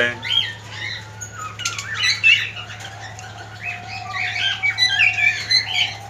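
Cockatiels chirping and squawking: many short calls overlapping, loudest about two seconds in and again near the end, over a steady low hum.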